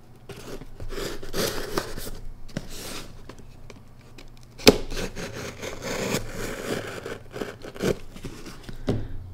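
A Spyderco PM2 folding knife's blade slicing through packing tape along a cardboard shipping box's seam: uneven scraping and tearing of tape and cardboard, with a sharp click about four and a half seconds in and a few light knocks near the end as the box is handled.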